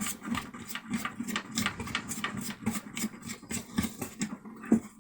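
Rapid clicking and scraping of small plastic parts, about five or six clicks a second, stopping just before the end: hands working a panel-mount USB/12-volt power port and its plastic retaining ring.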